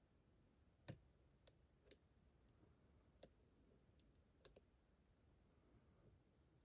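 Faint, irregular small clicks from a GEGE pExtra pin-tumbler lock being worked with lock picks, about eight ticks over several seconds with pauses between them.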